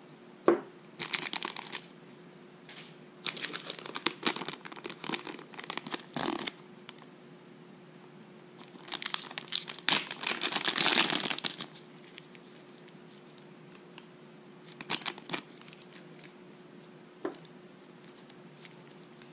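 Crinkling and tearing of a plastic retail bag as gloved hands open it to take out small brass fittings, in several separate bursts, the longest and loudest about nine to eleven and a half seconds in. A few sharp clicks come between the bursts.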